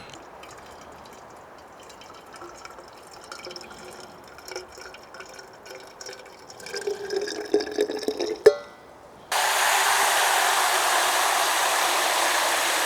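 Tea poured into a thermos, with faint clinks and then a rising pitch as the flask fills, ending with a click about eight and a half seconds in. A loud, even rushing noise follows for about four seconds, starting and stopping abruptly.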